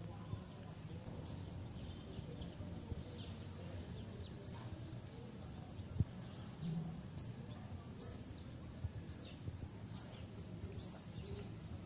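Small birds chirping, a quick run of short high chirps that grows denser from about three seconds in, over a low steady rumble of outdoor background noise. A single short knock sounds about halfway through.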